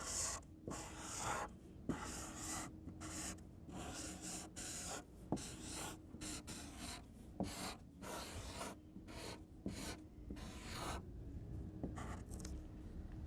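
Writing on a board: a run of short scratchy strokes, some with a sharp tap, as a phrase is written out letter by letter. It goes quieter in the last couple of seconds.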